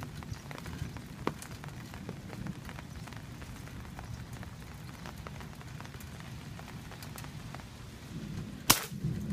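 Steady rain falling on an umbrella canopy overhead, individual drops ticking on the fabric. A single sharp click near the end.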